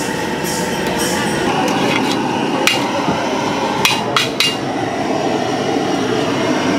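A metal ladle knocking against a large brass chai pot as the tea is stirred and lifted: four sharp metallic clanks, one about two and a half seconds in and three in quick succession about four seconds in, over steady background noise.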